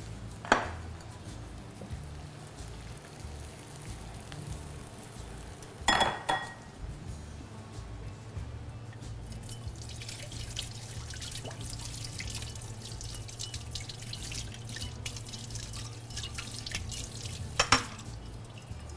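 Potato fries frying in hot oil in a pan: a continuous fine crackling sizzle that grows denser after about eight seconds. A few sharp knocks of utensils or pan sound about half a second in, around six seconds, and near the end.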